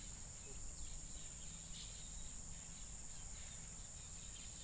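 Steady, high-pitched drone of insects chirring without a break, over a faint low background hiss.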